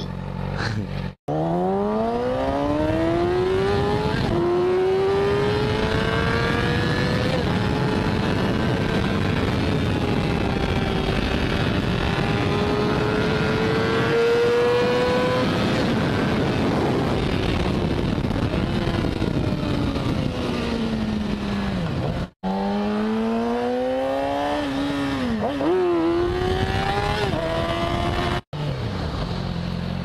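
2010 Yamaha YZF-R6's inline-four engine through an Akrapovic megaphone exhaust, accelerating hard with a steeply rising pitch that climbs on to high revs, then falling as the bike slows, with wind noise. The sound breaks off abruptly three times; a second short burst of rising revs follows, and it settles to a steady low running note near the end.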